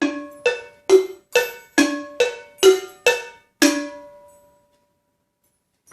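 Small pitched percussion struck nine times in an even walking rhythm, about two notes a second, stepping between two or three ringing notes; the last note rings on and fades. It is a sound effect for a character walking on its way in a told story.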